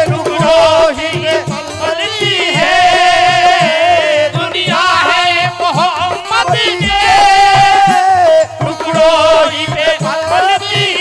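Qawwali music: long held, wavering melodic lines over a harmonium, with tabla strokes keeping the beat.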